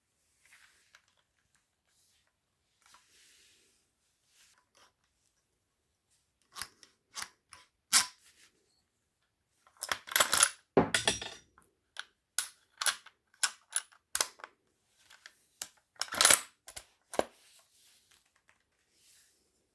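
Faint rustling, then from about six seconds in a run of sharp metallic clicks and clacks from full-metal airsoft rifles being handled. The clicks bunch into longer rattling clusters around ten and sixteen seconds in.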